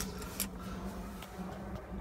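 A low, steady background hum during a pause in speech, with one faint click about half a second in.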